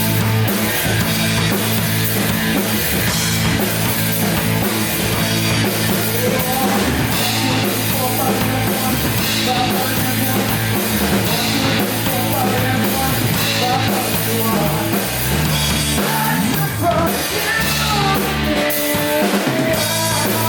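Heavy rock band playing live: electric guitars, bass guitar and a drum kit, loud and steady throughout.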